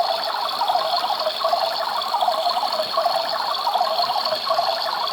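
Battery-operated toy washing machine running, its small motor turning the drum with a steady rattling whir and a thin high whine.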